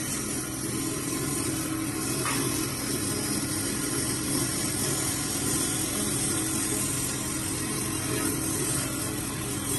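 Steady whir and hiss of a woodworking-shop machine motor running.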